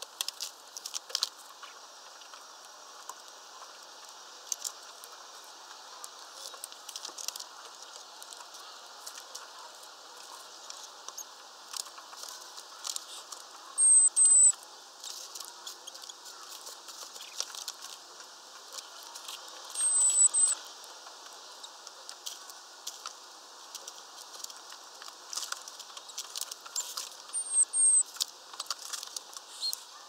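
Small songbirds at a peanut feeder: many light scattered taps and clicks from pecking and feet on the perches. Short high-pitched chirps come in pairs three times, about halfway in, two-thirds in and near the end, and they are the loudest sounds.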